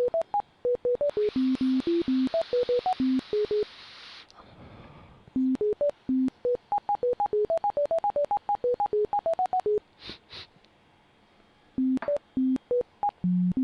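Bioresonance NLS scanning software playing its scan sounds: runs of short electronic beeps at shifting pitches, a few per second, with two pauses. A burst of hiss comes in about a second in and lasts about three seconds.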